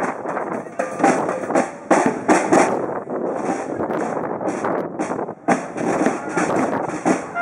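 Babble of people talking, with crackling, rustling noise over it and a few short stray notes from the band's wind instruments.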